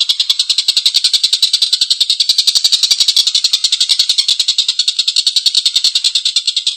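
Stork-billed kingfisher (tengkek buto) giving a long, harsh, rasping cackle, a fast run of roughly fourteen notes a second that carries on without a break.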